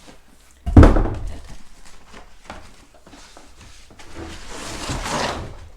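A large cardboard box set down with a heavy thud about a second in, then a longer rustle as it is handled and opened, swelling and fading near the end.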